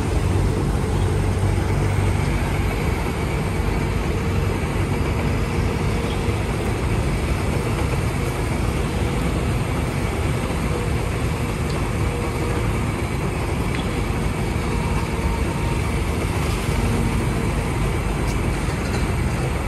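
Hydraulic excavator's diesel engine running steadily under load as the boom swings the bucket down into a trench, a continuous low rumble.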